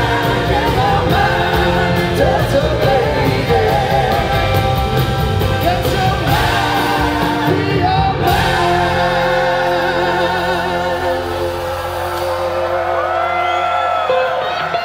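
Live rock band, with electric guitars, drums, saxophone and singing, playing the final bars of a song, heard from the audience in a large hall. About eight seconds in the band hits a last accent and lets the chord ring out, and near the end people in the crowd whoop.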